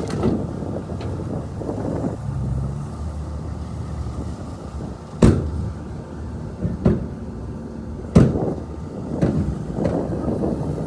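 Heavy diesel earthmoving machinery running with a steady low rumble, with two sharp metal clanks about five and eight seconds in and a lighter one between them.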